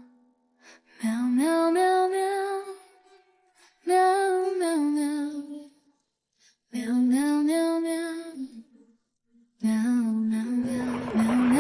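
Soundtrack music: a female voice singing a slow, lullaby-like melody in four phrases with short pauses between them. Near the end a loud rushing noise comes in under the singing.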